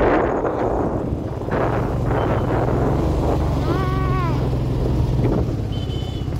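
Motorbike engine running steadily while riding, with wind rushing over the microphone. A short pitched tone rises and falls a little past the middle.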